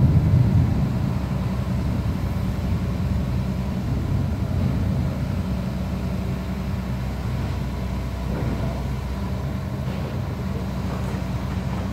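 Caterpillar 320D2 hydraulic excavator's diesel engine running steadily, louder for about the first second, then holding an even level.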